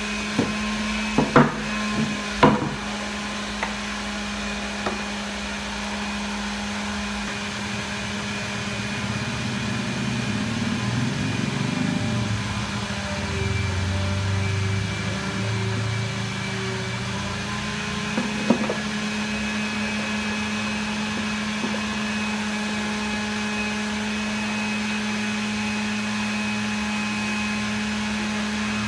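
A steady mechanical hum, like a fan or small motor running, with a few sharp wooden knocks near the start and once more later on, and some low rumbling while a plywood table is handled.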